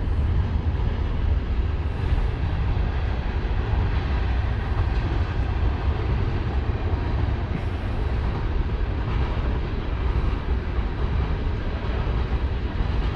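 A train rolling past, a loud steady rumble from the wheels on the rails.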